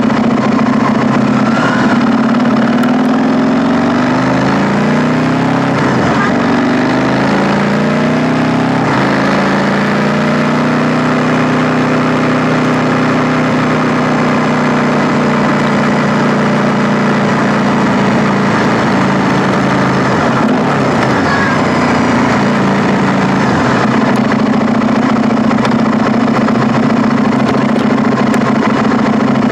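KTM 890 Duke R's parallel-twin engine under way, its pitch falling as the bike slows, rising again as it pulls away, then holding steady at a cruise, with a second easing off and pick-up later on. A steady rushing hiss of wind on the microphone runs under the engine.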